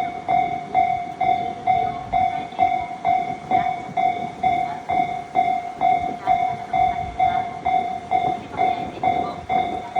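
Japanese level-crossing electronic warning bell ringing steadily at about two strokes a second, while a train runs over the crossing with its wheels knocking over the rail joints.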